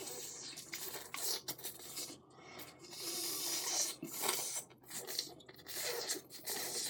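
Noodles being slurped and eaten, in several hissing slurps with small clicks in between.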